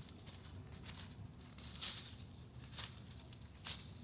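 A stick scraping and rustling through dry leaves and soil in short, irregular strokes, the loudest about two seconds in.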